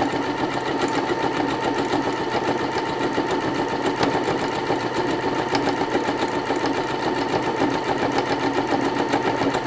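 Domestic sewing machine running steadily at medium speed, its needle and hopping darning foot stitching through hooped fabric in free-motion embroidery.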